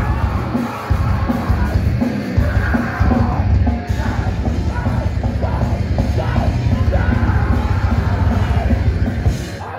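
A loud rock band playing live, with yelled vocals over pounding drums and heavy bass. The song stops near the end.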